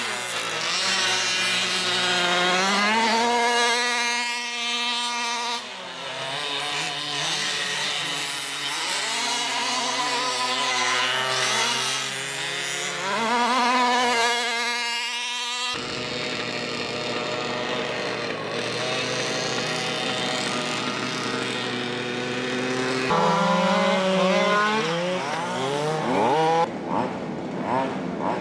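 Small two-stroke petrol engines of large-scale 1/4 RC race cars revving up and down as they lap the track, their pitch repeatedly rising and falling. More than one engine is heard at once, and the sound changes abruptly about halfway through.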